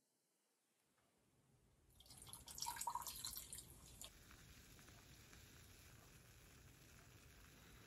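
Beer poured from a can into a glass, heard for about two seconds starting two seconds in; a faint steady hiss follows.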